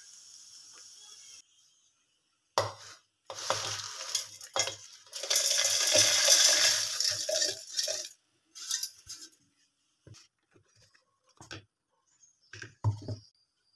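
Dried red chillies, curry leaves and garlic tipped by hand into a stainless steel mixer jar, rattling and clinking against the steel for several seconds. This is followed by a few separate short knocks and clinks as the jar is handled.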